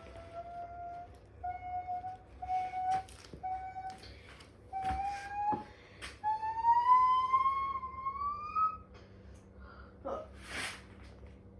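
Washing machine spinning up with its counterweight removed: a motor whine that climbs steadily in pitch, cutting in and out, with scattered sharp knocks. The whine stops about nine seconds in.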